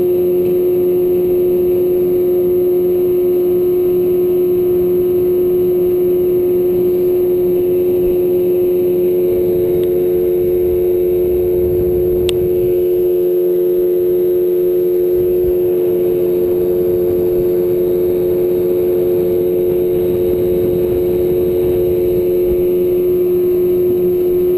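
A boat motor running steadily under way, with a constant engine drone. A second, higher tone joins it about nine seconds in.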